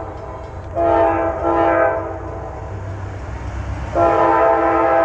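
Air horn of a GE Dash 9-40CW diesel locomotive leading a train, sounding a multi-note chord: a blast of about a second, then a longer one starting about four seconds in. A low rumble from the train runs underneath.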